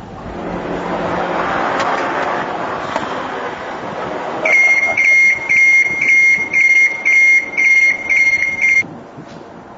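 Motion warning alarm of a boom lift (mobile elevating work platform): a high electronic beep repeating about twice a second, starting about four and a half seconds in and stopping near the end. Before it there is a steady rushing noise.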